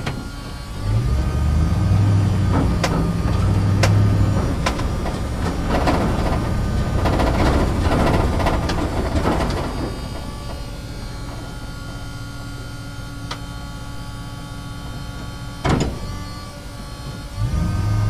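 Truck driving through a parking structure: its engine drones louder for the first half, with knocks and rattles, then settles to a quieter steady running. A single sharp clunk comes near the end, and the engine swells again just before the end.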